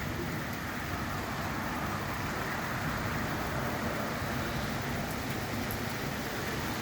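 Steady rain pouring down during a thunderstorm, an even hiss that holds at one level throughout.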